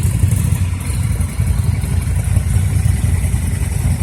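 Ducati Scrambler's L-twin engine running steadily at low revs, with a deep, pulsing exhaust beat.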